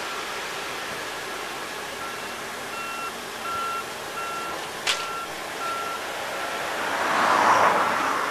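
A vehicle's reversing alarm beeping steadily, just under two beeps a second, over a steady background hum. A single sharp click comes about five seconds in, and a louder rushing swell rises and fades near the end.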